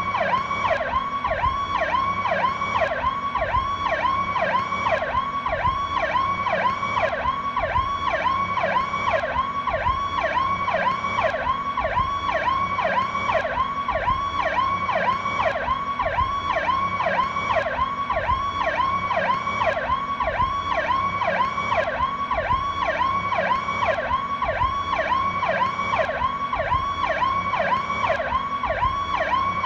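PowerCall police siren sounding a rapid yelp, its pitch sweeping up and down about three times a second without a break.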